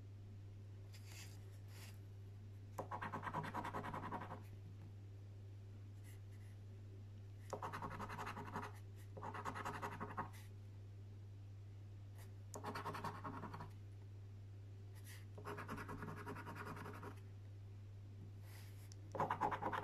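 A coin scratching the scratch-off coating from a lottery scratchcard, in six short bouts of rapid strokes with pauses between them, over a steady low hum.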